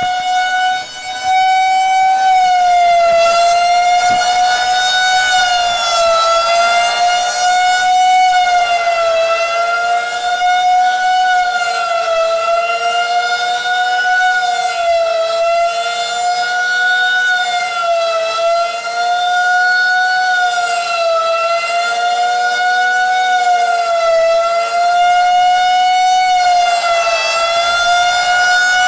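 Outdoor tornado warning siren sounding its scheduled monthly test: one long, loud, steady wail that comes up to full strength in the first second, then wavers slightly in pitch and loudness about every six seconds.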